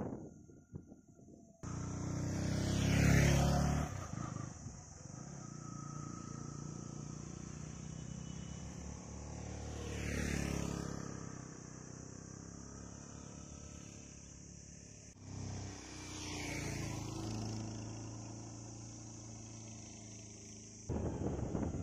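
Road vehicles passing by three times, each one swelling up and fading away, over a steady high hiss.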